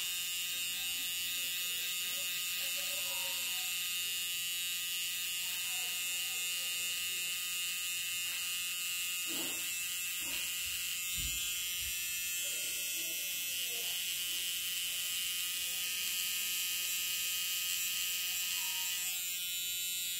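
Permanent-makeup machine pen buzzing steadily as its needle works pigment into an eyebrow, with a high-pitched whine.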